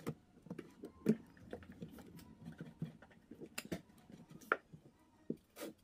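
Scattered light taps and clicks of hands working at a kitchen counter, handling baguette slices and utensils while preparing cinnamon-sugar toast.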